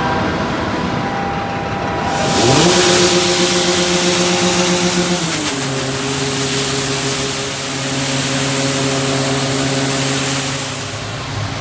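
Tractor engine heard from inside the cab, revving up about two seconds in, holding, then settling to a lower steady speed a few seconds later. A loud steady hiss sits over it from the rev-up until near the end.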